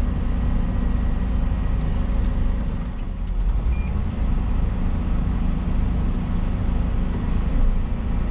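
Volvo EC220 excavator's diesel engine running steadily with its hydraulics, heard from inside the cab. A few faint clicks and a short high beep come about three to four seconds in.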